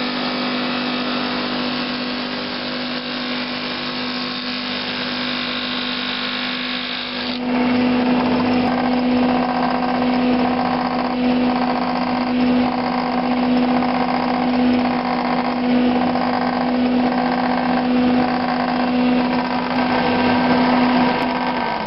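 Homemade drum sander running with a steady hum while a glued-up wooden panel is fed under the sanding drum to flatten it. About seven seconds in the sanding gets suddenly louder, with a regular pulsing a little faster than once a second, and near the end the motor's hum starts to drop in pitch.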